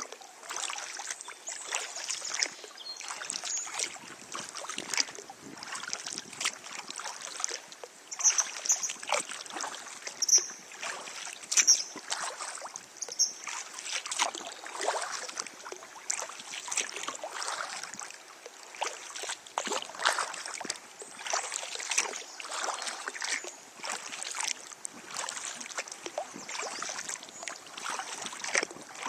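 Kayak paddle strokes through river water, irregular splashes and drips over a steady wash of water. A few short high bird chirps between about 8 and 13 seconds in.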